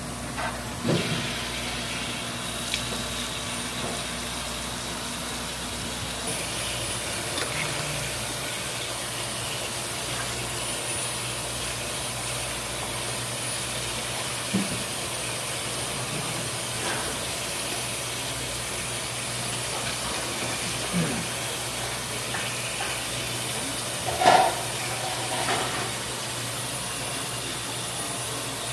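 Steady rushing hiss with a faint low hum, broken by a few short knocks and clatters; the loudest brief sound comes about 24 seconds in.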